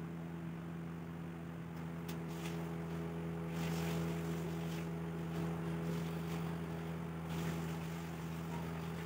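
A steady low mechanical hum runs throughout. From about three and a half seconds in to about seven seconds, a pencil lead scratches across plywood as a wooden compass swings it through an arc.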